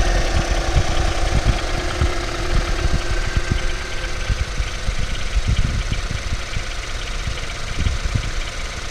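Ford Focus 3's 1.5 EcoBoost turbocharged petrol engine running, with a knock coming through as unevenly spaced low thumps. This is the engine knock the owner reports at only 18,000 km.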